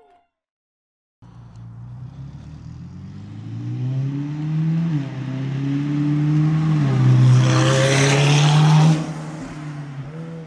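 McLaren 720S's twin-turbo 4.0-litre V8, fitted with a tuned exhaust, accelerating past. Its pitch climbs and drops back twice as it shifts up. The sound is loudest as the car goes by, then falls off sharply and fades away.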